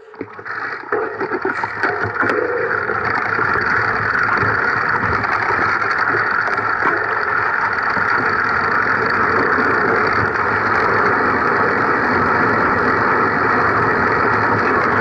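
Steady running noise of a ride along a grassy dirt track, picked up by a camera mounted on the vehicle; it builds up over the first two seconds, then holds even.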